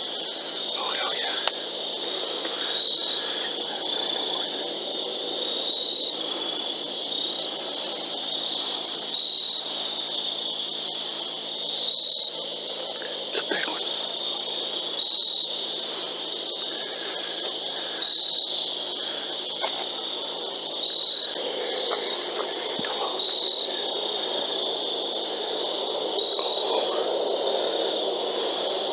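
Steady night insect chorus, a dense high trill of crickets with a brighter chirp standing out about every three seconds. A lower rustling noise rises beneath it over the last several seconds.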